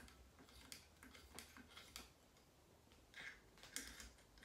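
Faint ticks and light scraping of a bore snake's pull cord being fed into an AR-15 barrel, with a couple of soft rustling scrapes about three seconds in.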